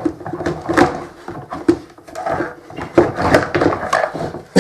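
Hard plastic parts of a vacuum cleaner knocking and clicking as its motor is turned and shifted in the housing: a run of irregular knocks and clicks, several a second.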